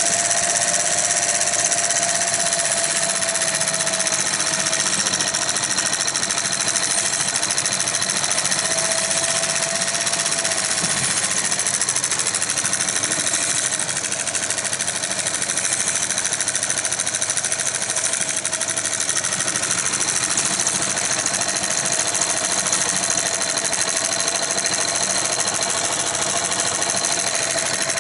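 Pathescope 200B 9.5mm cine projector running with film threaded and the lamp off, its first test run: the motor and film mechanism run steadily with a continuous whine.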